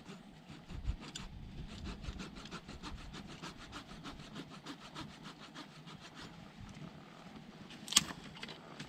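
A kitchen knife chopping quickly on a wooden cutting board, an even run of about five strokes a second, with one sharp click near the end.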